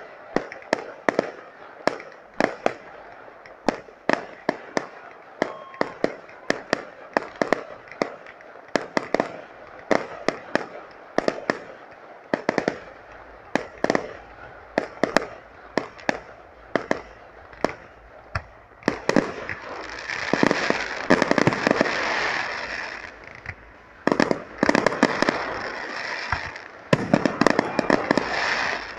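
Fireworks display: a steady run of sharp bangs from shells bursting in the air, about two or three a second. About two-thirds of the way through, and again near the end, the bangs give way to a thick spell of crackling.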